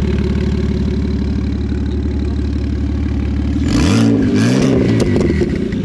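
Car engine idling steadily, then revved a few times in quick succession about four seconds in before dropping back to idle.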